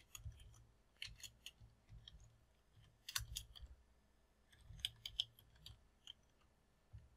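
Faint computer keyboard typing: short bursts of clicking keystrokes with pauses between them.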